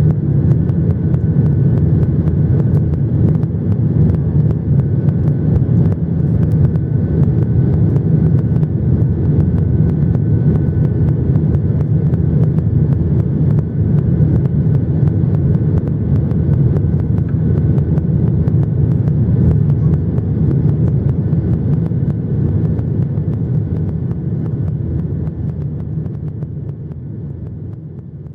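Steady low rumble of a Boeing 737-800 airliner's engines and airflow, with a faint steady whine above it, fading away over the last few seconds.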